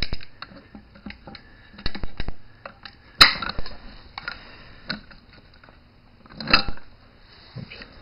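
Metal clicks and clanks of a Farmall disc brake actuator and vice grips being handled and clamped, with two sharper clanks about three seconds in and again about six and a half seconds in.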